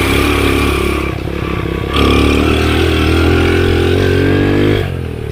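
Underbone motorcycle engine revving while riding. About two seconds in the engine note jumps up sharply, holds and climbs slowly, then falls away near the end.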